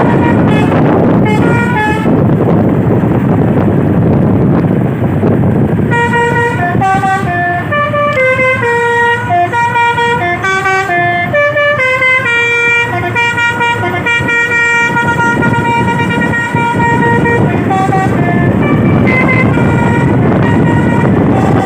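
A truck's telolet Basuri multi-tone horn plays a tune of stepping notes for about twelve seconds from roughly six seconds in, over the steady noise of the passing truck. A couple of short horn notes sound about a second in, and a few more near the end.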